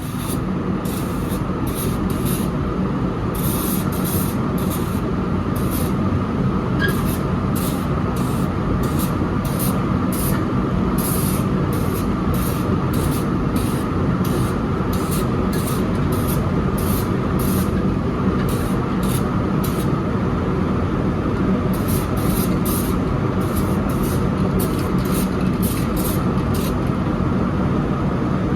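Aerosol spray paint being sprayed in many short hissing bursts, over a steady low rumbling noise.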